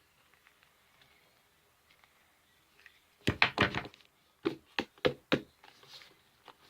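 Knocks on a hard surface: a quick cluster of several about three seconds in, then four single knocks roughly a third of a second apart.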